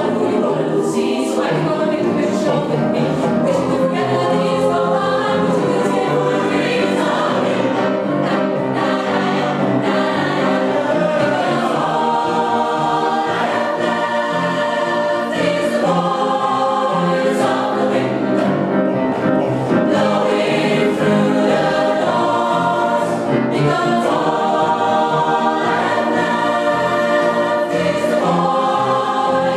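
Mixed choir of men and women singing together, many voices in harmony.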